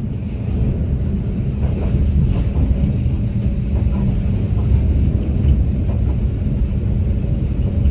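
Steady low rumble of a moving passenger train heard from inside the coach: wheels running on the rails at about 43 km/h on a steep uphill grade.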